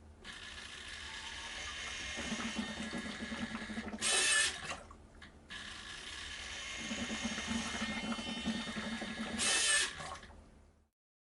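Small electric motor of a homemade ventilator running through two cycles of about five seconds. Each cycle builds steadily with a faint whine and ends in a short, louder rush of noise.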